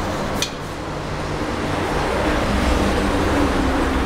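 A steady mechanical drone with a low hum, swelling louder about two seconds in, with one short click near the start.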